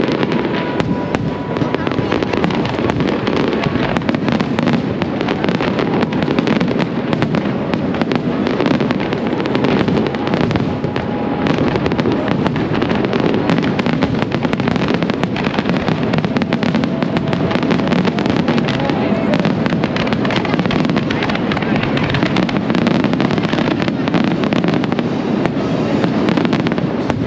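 Aerial fireworks going off without pause: a dense stream of crackling and bangs.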